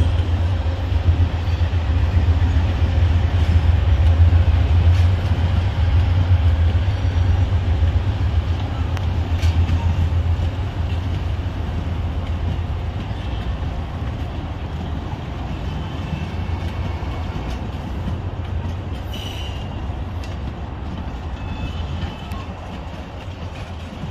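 Amtrak bi-level Superliner passenger cars rolling past as the train pulls out of the station: a steady low rumble of wheels on rail, with a few faint clicks. There is a brief high wheel squeal about three quarters of the way through, and the rumble gradually fades.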